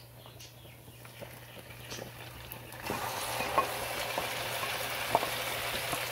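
Food frying in hot oil in a nonstick frying pan: a faint sizzle from lightly browned garlic, then about three seconds in a sudden, much louder steady sizzle as marinated chicken pieces fry, with a few light clicks from the pan.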